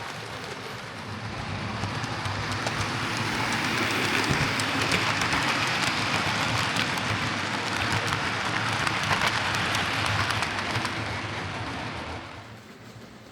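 Hornby R2169 Merchant Navy 'Clan Line' OO gauge model locomotive running along the track after its service, motor whirring and wheels crackling on the rails. It grows louder over the first few seconds, as if approaching, then fades about twelve seconds in.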